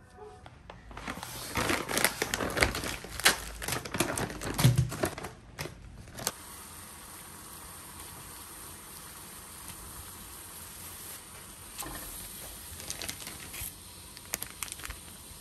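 Crinkling of a vacuum-sealed plastic bag of fish cakes being handled, for about five seconds. Then a steady hiss of water boiling in a pot, with a few light rustles and clicks near the end.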